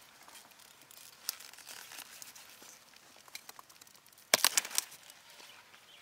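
Broccoli plant being handled during harvest: leaves rustle and crinkle, then a quick cluster of sharp cracking snaps about four seconds in.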